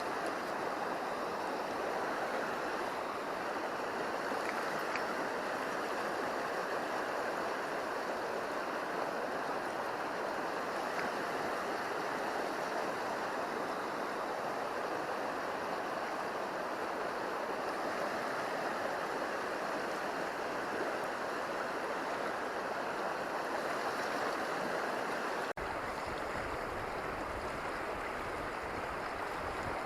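River water rushing steadily over a riffle, an even flowing hiss; about 25 seconds in, a low rumble joins it.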